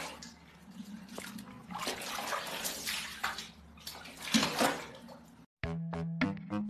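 Water splashing and sloshing in a plastic tub as a kitten moves about in it and scrambles out. About a second before the end it cuts to music, with a cat crunching dry kibble.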